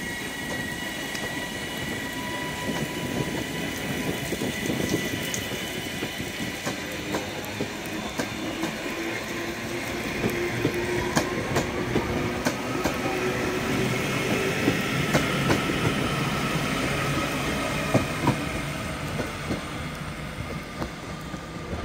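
Class 331 electric multiple unit pulling slowly out of the platform, its wheels clicking over rail joints and points. From about halfway through, a whine rises in pitch as the train gathers speed.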